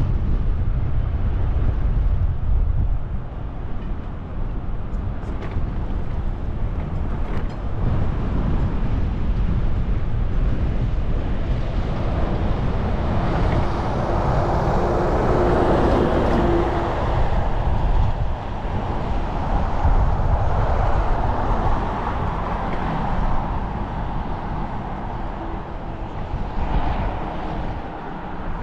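Wind buffeting a helmet-mounted action camera on a moving bicycle, a steady low rumble. A vehicle passes on the adjacent road, its tyre and engine noise swelling to a peak about halfway through and then fading.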